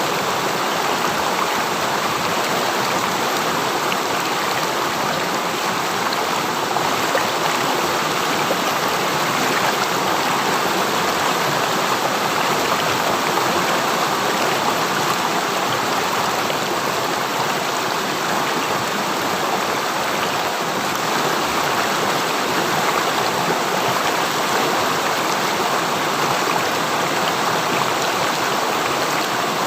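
River water running over rocks: a steady rush of flowing water with a gurgling, splashing texture and no breaks.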